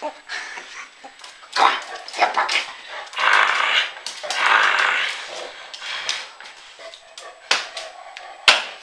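A dog barking and yelping in excited play, in several short outbursts with gaps between.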